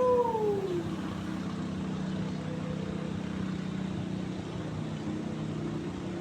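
Steady low hum of a running engine. Over it, at the very start, comes one wailing call about a second long that rises and then falls in pitch.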